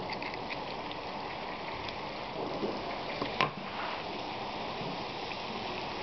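Hot oil in a deep fryer sizzling and bubbling steadily around frying oliebollen dough balls. There is a sharp click about three and a half seconds in.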